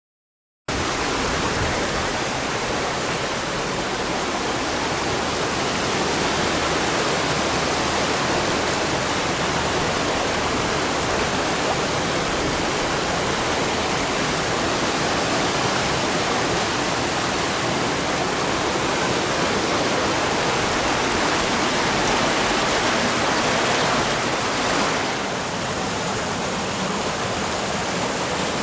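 Spring water rushing through a rocky stone channel and tumbling over small cascades: a loud, steady rush of water that starts just after a brief silence at the very beginning.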